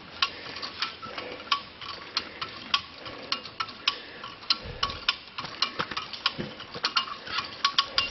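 Hand-pumped ratchet winch clicking as its handle is worked, a few sharp, uneven clicks a second, while it takes up the recovery strap to pull a rolled-over Jeep back onto its wheels.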